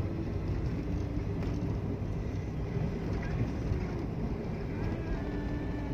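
Daihatsu Terios's engine running with tyre and road rumble, heard from inside the cabin while driving at low speed: a steady low rumble with a faint hum.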